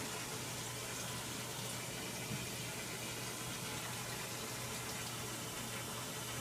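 Samsung WA45H7200AP top-load washing machine running with a steady low hum over an even, watery rushing noise.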